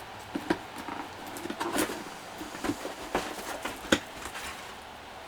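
Cardboard model-kit box being handled and opened by hand: scattered light taps, scrapes and rustles, with one sharper knock near four seconds in.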